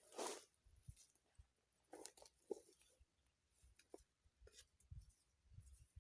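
Near silence broken by faint, scattered rustles and small clicks, with a few soft low thumps about five seconds in.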